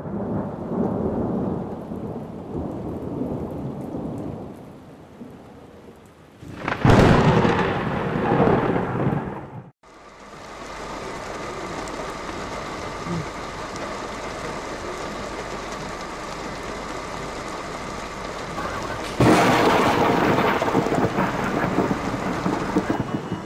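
Thunderstorm: rain with rolling thunder, a loud thunderclap about seven seconds in that cuts off abruptly near ten seconds, then steady rain and a second loud burst of thunder from about nineteen seconds on.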